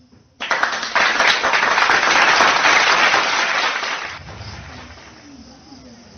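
Applause sound effect, many hands clapping, played as a reward for a correct quiz answer. It starts suddenly about half a second in and dies away at about four seconds.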